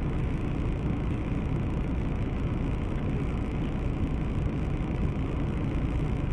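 Steady low rumble of a car driving: engine and road noise, even throughout, with no impact.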